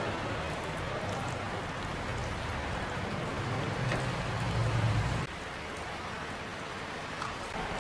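Tomato risotto sizzling and bubbling in a non-stick frying pan while a silicone spatula stirs it. The stirring stops about five seconds in, and a low rumble drops away with it, leaving the steady sizzle.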